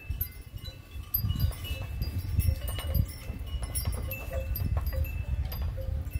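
Wind chimes ringing now and then with short notes at several different pitches, over a low steady rumble.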